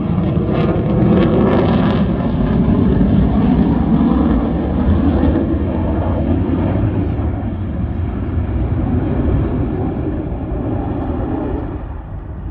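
F-35 fighter's jet engine roaring as it flies past, with a slowly shifting pitch and a gradual fade as it moves away.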